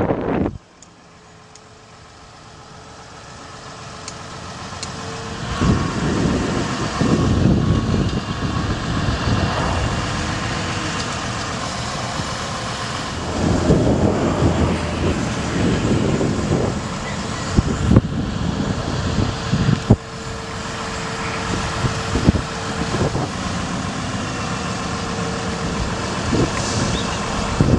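Utility bucket truck running outdoors, its engine and boom hydraulics working, with a thin steady whine in places and a few sharp knocks or clicks. The sound fades in over the first few seconds.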